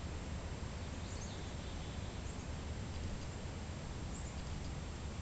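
Outdoor ambience: a low steady rumble with a few faint, high bird chirps scattered through it.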